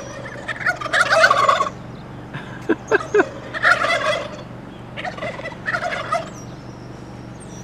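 Turkeys gobbling: five rattling gobbles in quick succession, the loudest about a second in, with a few shorter, lower calls around three seconds in.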